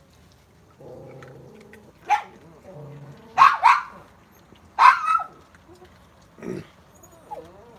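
Raccoons squabbling over food, snarling and growling at each other: a low growl about a second in, then several short, sharp snarls, the loudest two in the middle.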